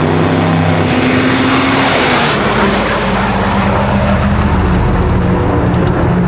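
Import drag car launching off the start line and pulling away at full throttle down the strip, its engine note changing about a second and again about two and a half seconds in.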